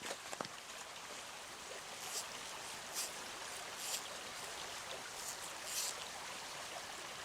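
Small mountain stream running steadily over rocks, a steady wash of water with a few brief, sharper splashes or trickles in the middle seconds.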